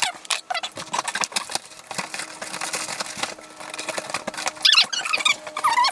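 Scissors cutting through the packing tape and cardboard of a box: a quick, irregular run of snips and scrapes, with the cardboard flaps rustling as they are pulled open.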